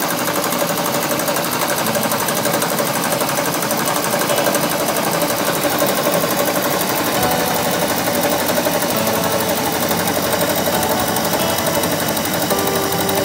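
Vertical milling machine running and cutting into a turbocharger's turbine housing, a steady machining noise with a shop vacuum running at the cut to pick up the chips. The cut is making room on the turbine housing to mount a wastegate.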